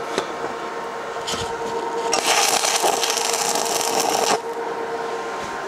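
Stick-welding arc tacking steel: a short burst about a second in, then the arc burns with a loud crackling hiss for a little over two seconds and cuts off suddenly. A steady hum runs underneath.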